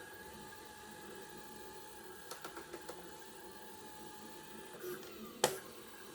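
Stepper motors of a home-built robotic-arm 3D printer whining steadily as the arm moves through a print, with a few light clicks about two seconds in. Near the end the whine shifts and glides down, followed by one sharp click.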